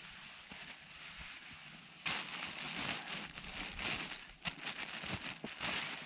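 Frozen nylon camping gear rustling and crinkling as it is handled and packed, starting about two seconds in with many small crackles.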